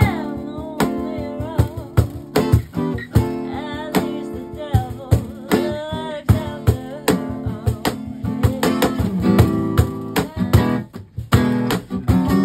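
Live acoustic band: a strummed acoustic guitar and a cajon keeping a steady beat, with singing over them.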